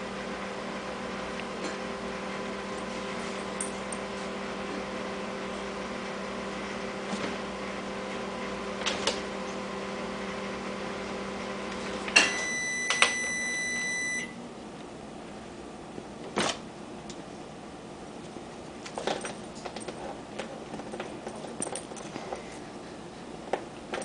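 A steady kitchen-appliance hum stops about halfway through, just as one long, high electronic beep sounds for about two seconds. Light scattered taps and clicks of a cat's paws and claws on the plastic of an open dishwasher door run throughout.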